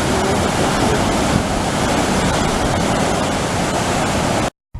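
Waterfall: a steady, loud rush of falling water that cuts off abruptly near the end.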